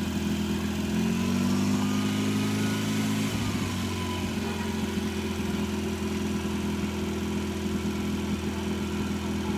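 Portable fire pump engine idling steadily. Its revs rise a little about a second in and drop back after about three seconds.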